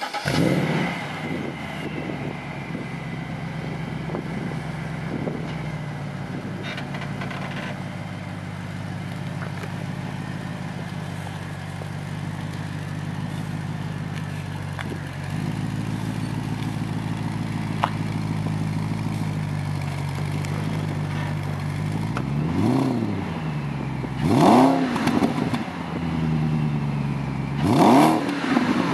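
BMW 645Ci's 4.4-litre V8 through an aftermarket sport exhaust, settling from a start-up flare into a steady idle that steps up slightly about fifteen seconds in. Near the end it is revved three times in short blips, the last two the loudest.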